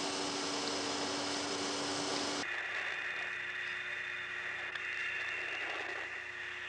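Steady hiss and hum of an old archival film soundtrack with no clear foreground sound; about two and a half seconds in, the noise changes abruptly to a thinner, higher hiss.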